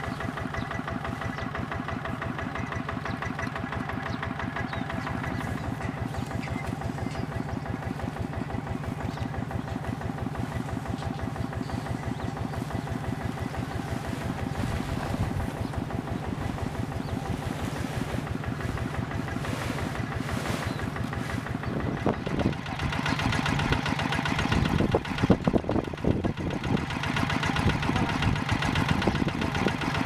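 Single-cylinder diesel engine of a two-wheel walking tractor running steadily at idle, with an even, rapid chugging. In the last several seconds louder irregular thumps and rustling come in over it.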